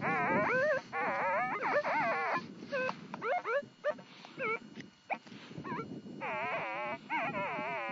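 Minelab E-Trac metal detector giving warbling target tones that waver up and down in pitch, in repeated bursts with short chirps in the middle and a longer burst near the end that drops in pitch, as the coil is worked over a buried target that proves to be a small piece of lead.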